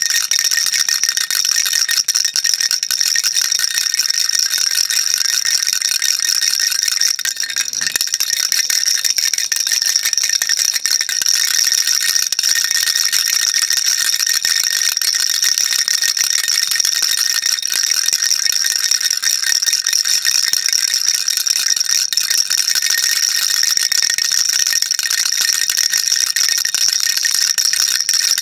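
Baby rattle shaken continuously, a dense steady high rattling of small beads, with a brief dip about seven seconds in.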